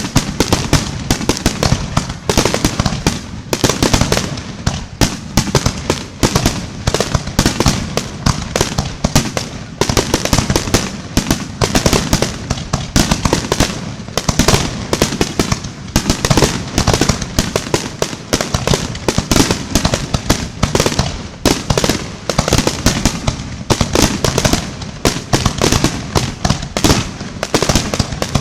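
Aerial fireworks display: a rapid, unbroken barrage of shells bursting, many loud bangs a second overlapping one another.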